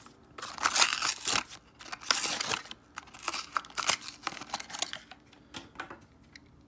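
Hot Wheels blister pack being torn open: the cardboard card ripping and the clear plastic bubble crinkling, in a series of crackly bursts that die away about six seconds in.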